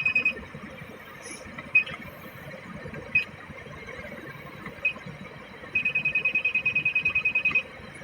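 Autopilot control panel key beeps as the off-course alarm limit is stepped down to 5 degrees. Single short high beeps come every second or so, then a rapid run of about ten beeps a second for nearly two seconds near the end, over a steady low hum.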